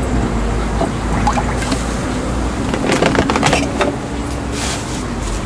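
Street-stall sounds at a crepe griddle: a steady low traffic rumble, then a cluster of quick clicks and light scrapes from utensils and containers about three seconds in, followed by a soft hiss.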